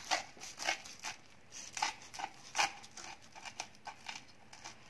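A kitchen knife sawing through a grill-toasted sandwich, the crisp toasted bread crunching with each stroke at about two to three strokes a second. The strokes grow fainter in the second half.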